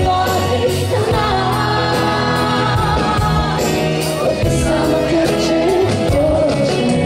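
Live pop ballad: a female singer with a band of keyboard, drums and guitar, heard from the audience.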